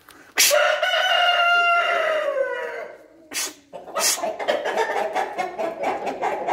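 A rooster crows once, a long call that starts about half a second in, holds steady, then drops in pitch and ends after about two and a half seconds. From about four seconds in, hens cluck continuously.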